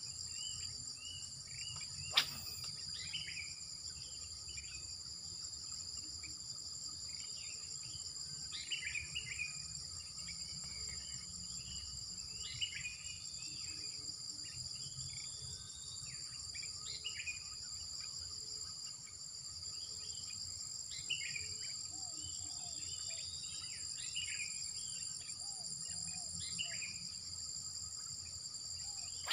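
Steady, high-pitched chorus of insects, with scattered short bird chirps over it and one sharp click about two seconds in.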